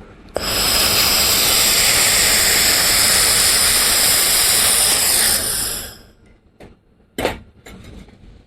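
Handheld fiber laser welder welding 1 mm stainless steel: a loud steady hiss with high whining tones that starts abruptly, runs about five and a half seconds and cuts off. A single short knock follows about seven seconds in.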